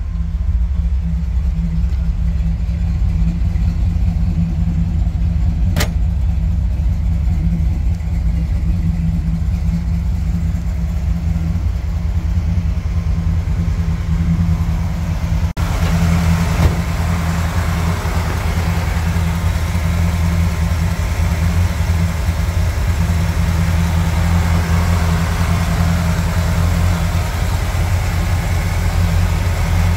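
The V8 engine of a 1951 Chevrolet 3100 pickup idling steadily, with a single click about six seconds in. About halfway through, the sound turns brighter and busier as the engine's mechanical noise comes through more clearly.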